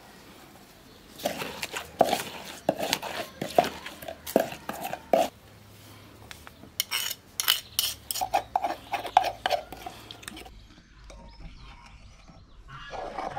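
Irregular runs of sharp knocks and clinks from pounding herbs and salt with a pestle in a wooden mortar and handling it against a glass bowl and wooden table.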